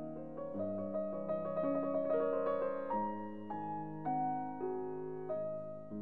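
Slow, gentle piano music, single notes and chords struck one after another and left to ring, with a quicker run of notes about two seconds in.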